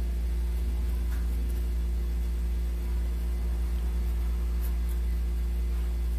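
Steady low hum with a few constant higher tones above it, unchanging throughout; no other clear sound.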